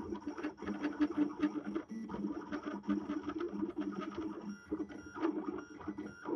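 A 3D printer's stepper motors run in short stop-start moves, a buzzing whir with brief high whines between moves, as the print head steps a UV laser from pad to pad over the photoresist.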